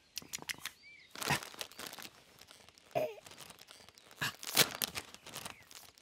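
Crisp packet crinkling and rustling in several short bursts as it is handled and opened.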